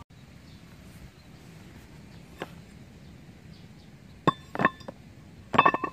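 Sharp metallic clinks with a brief ring: two about four seconds in, then a quick cluster near the end, as steel-backed brake pads are handled and knocked together.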